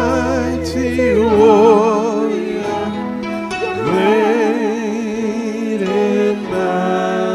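A woman singing a gospel worship song with strong vibrato on long held notes, amplified through a microphone. A steady low accompanying tone sounds under her voice and stops about a second and a half in.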